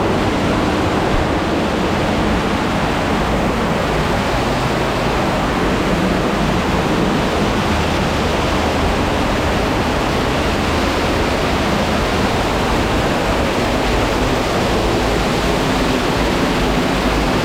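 Loud, steady rush of a cave waterfall, the falling water close by.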